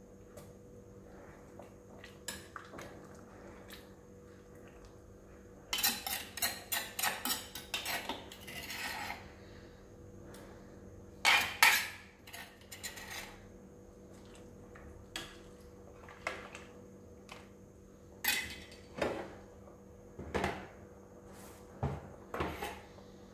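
A spoon clinking, tapping and scraping against cookware as seasoning paste is scooped and stirred into a pot of soup. It comes as a quick run of taps and scrapes about a quarter of the way in, a few louder clanks near the middle, then scattered knocks, over a faint steady hum.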